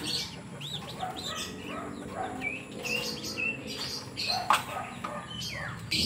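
A pigeon's wings flapping and rustling as it is caught by hand and lifted out of a wire cage, with a couple of knocks against the cage. Birds in the loft chirp repeatedly with short, high calls.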